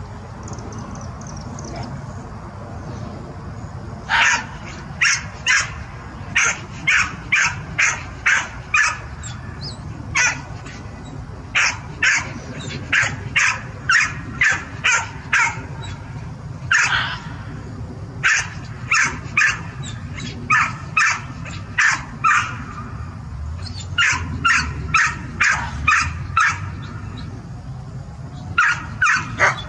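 Short, sharp, high-pitched barks from a dog or red fox, in quick runs of about two a second with pauses between the runs, over a steady low rumble.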